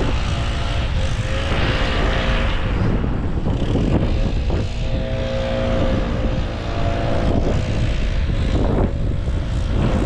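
Wind buffeting a helmet-mounted microphone high in a tree, a constant low rumble. A faint steady engine hum comes and goes underneath.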